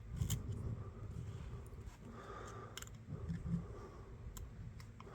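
Faint scraping and handling of a small screwdriver working rust and gunk out of a rusty pocketknife, with a few light sharp clicks of metal on metal.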